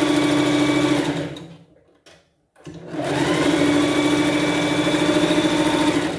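Sewing machine stitching a straight seam in two runs. The first run winds down and stops about two seconds in. After half a second's pause the machine starts again and runs steadily to the end, sewing the seam forward and then back.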